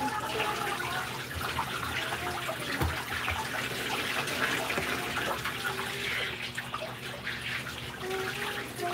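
Running water splashing steadily.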